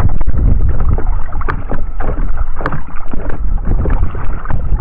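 Wind buffeting the microphone in a steady rumble over water sloshing and splashing irregularly around a person wading in choppy shallows.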